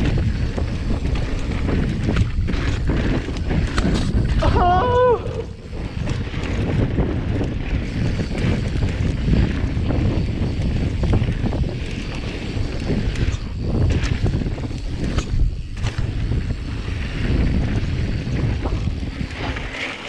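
Mountain bike rolling fast down a dirt trail: wind buffeting the microphone and tyre rumble, with frequent short rattles and knocks from bumps. About four and a half seconds in there is a short wavering squeal.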